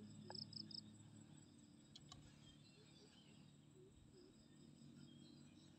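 Near silence with faint insects chirping, including a short run of three quick chirps near the start.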